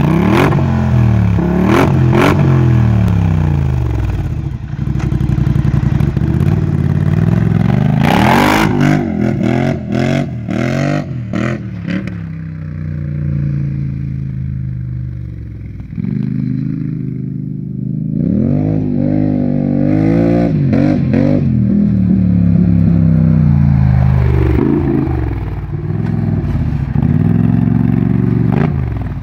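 Polaris Sportsman 1000 ATV engine through an RJWC aftermarket exhaust, revving up and down in repeated surges, with sharp cracks in the middle. It fades as the quad runs far off, then grows louder again and revs near the end.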